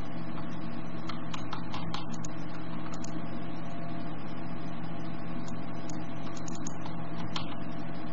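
Steady low electrical hum with several short mouse clicks scattered through it, most in the first three seconds and one more near the end.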